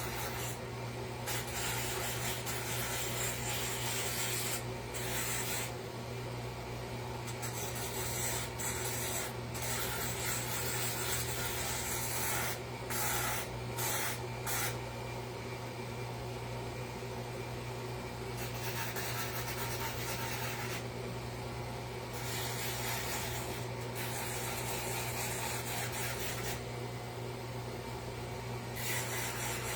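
Hand shaping of wood: an abrasive tool scraping over the sign's edge in long strokes of one to a few seconds, with short pauses between, as the edge is rounded. A steady low hum runs underneath.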